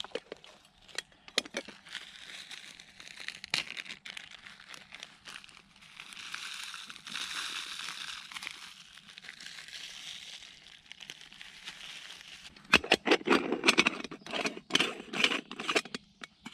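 Hands handling a camping gas stove and an aluminium moka pot: scattered clicks, then a soft rustle as ground coffee is poured from a bag into the pot's filter basket. Near the end, a quick run of metallic clicks and scrapes as the moka pot's halves are handled and screwed together.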